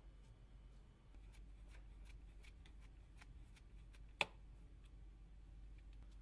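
Faint small clicks and ticks of a precision screwdriver turning out a tiny Phillips size 00 screw in a phone, with one sharper click about four seconds in.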